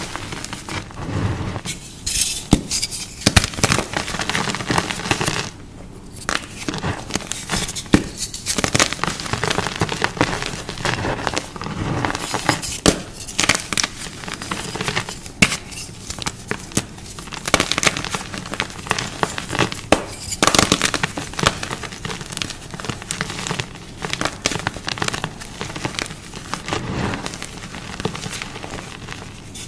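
Close-up ASMR crunching: dense, irregular sharp crunches and crackles in quick succession, with only brief lulls.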